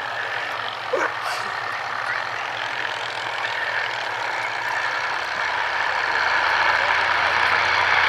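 Piston engine and propeller of an early Edwardian-era replica aircraft running as it flies low past, growing louder over the last few seconds. There is a short knock about a second in.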